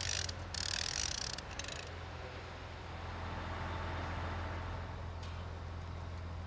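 Mobile crane's engine running steadily with a low hum, with bursts of hissing during the first two seconds.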